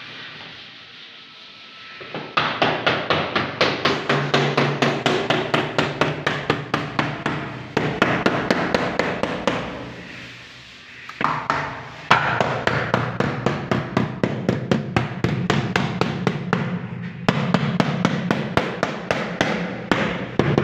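Rapid, even tapping of a mallet on the uPVC frame, about four to five knocks a second, driving the glazing beads in to hold the fixed window's glass; it pauses briefly twice.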